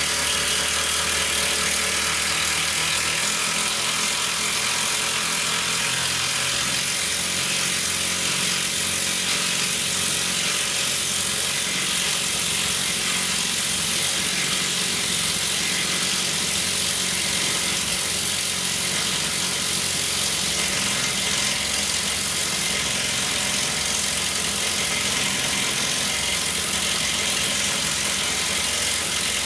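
Makita 40V XGT mid-torque impact wrench hammering steadily as it drives a 12 mm by 300 mm screw into timber, the pilot hole reaching only halfway.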